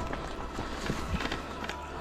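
Mountain bike riding down a rough forest trail: tyres rolling over the ground, with scattered knocks and rattles from the bike and a faint steady high tone underneath.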